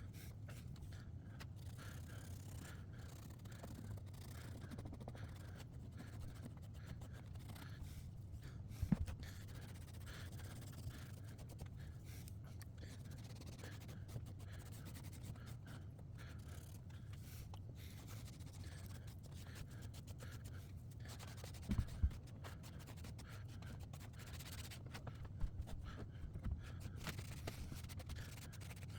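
Damp towel scrubbing wet paper off a plywood puzzle board, a faint steady rubbing that lifts away the paper left over the Mod Podge-sealed image. A few light knocks sound about 9 and 22 seconds in and again near the end.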